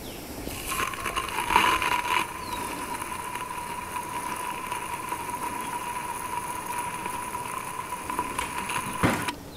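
Aerosol can of B'laster penetrating oil spraying a steady hissing jet with a thin whistle down the injector holes into the cylinders of a diesel tractor engine that has sat for years. The spray starts about a second in, is briefly louder soon after, and cuts off just before the end.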